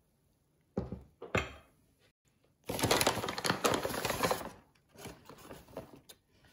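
Kitchen handling noises: two sharp knocks of kitchenware on the counter about a second in, then a couple of seconds of loud rustling and scraping, with a few smaller clatters near the end.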